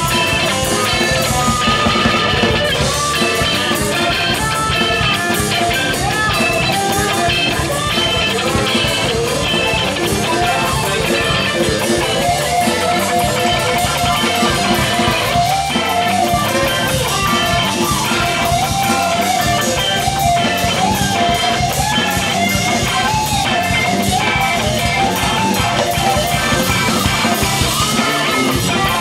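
Live rock band playing an instrumental jam: a wavering electric guitar lead line over bass guitar and drum kit.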